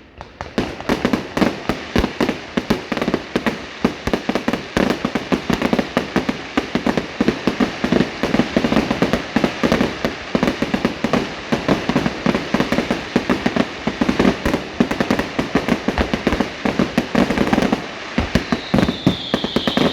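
Fireworks display firing a continuous rapid barrage of loud bangs, several a second, starting about half a second in.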